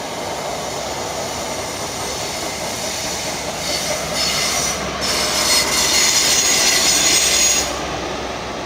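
A train passing close by on the track, its wheels squealing on the rails. It grows louder and shriller from about three and a half seconds in, then eases off near the end.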